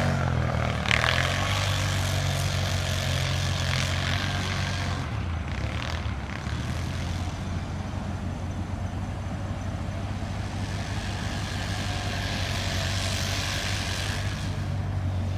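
A vehicle engine running steadily with a low, even hum, dipping slightly in the middle and coming up again near the end.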